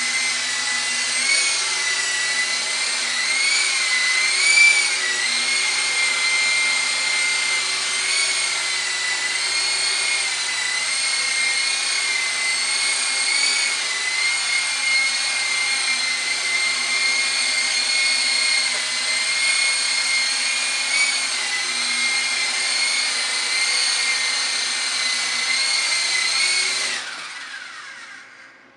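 Electric motors and rotors of an RC toy helicopter making a steady high whine, its pitch wavering slightly up and down with the throttle. About two seconds before the end it winds down, the whine falling in pitch and fading out.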